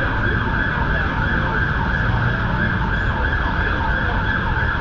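An emergency vehicle's siren sounding over steady city traffic rumble.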